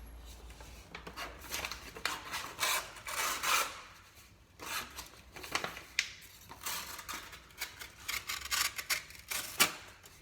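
Knife blade drawn in repeated short scraping strokes across a sharpener, about a dozen strokes at an uneven pace.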